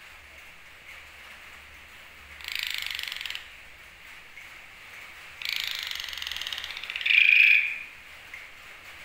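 Asian pied starling (jalak suren) giving two harsh, rattling, snore-like calls. The first lasts about a second, and the second, about two seconds long, ends in a louder, clearer note.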